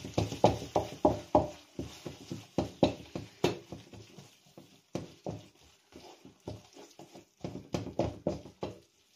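Wooden spatula knocking and scraping against a non-stick frying pan while stirring, in quick irregular taps several a second. The taps thin out in the middle and pick up again near the end.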